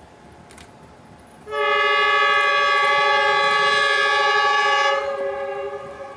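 Dongfeng 4DK diesel locomotive sounding its horn: one long, loud blast of several tones together, starting about a second and a half in, held for about three and a half seconds, then dropping away to a fainter tail.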